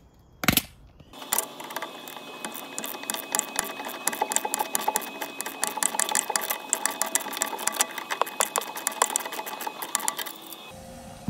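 Hand ratchet and metal tools clicking rapidly and steadily as the nut on a Mercedes W203 anti-roll bar link's upper stud is spun off, the stud held with a T40 Torx bit. One sharper clink comes about half a second in.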